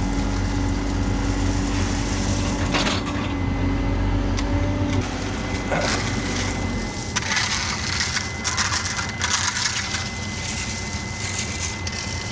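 A machine engine runs steadily over gritty scraping of dirt and gravel. The engine drops away about seven seconds in, and the scraping carries on in irregular bursts.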